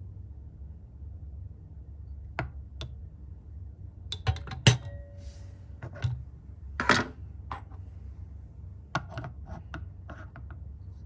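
Clinks and light knocks from handling lab items: a glass test tube set down with a loud clink and brief ring about halfway in, then plastic ball-and-stick molecular model pieces clicking as they are pulled off and fitted together, with a quick run of small clicks near the end. A steady low hum runs underneath.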